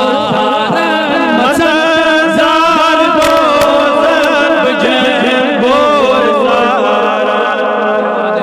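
A man's voice chanting a Kashmiri naat in one unbroken line, holding long notes with wavering, ornamented turns of pitch.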